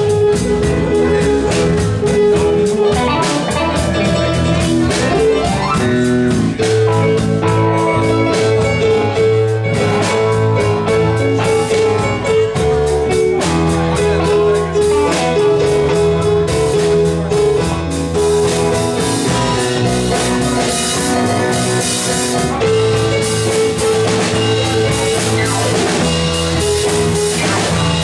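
Live blues band playing: a Yamaha electric keyboard played with both hands over bass, guitar and drums. The cymbals get louder in the second half.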